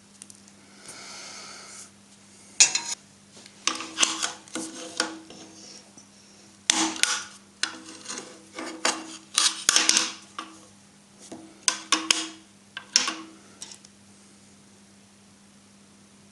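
Irregular rasping scrapes and metallic clinks from hand work on a thick, heat-damaged welding earth cable, with a soft swish about a second in. A faint steady hum runs underneath.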